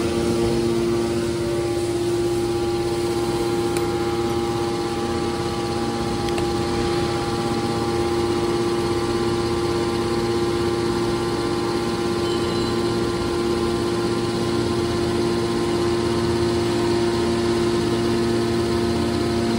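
Electric motor and hydraulic pump of a scrap metal baler running with a steady, unchanging hum of several held tones.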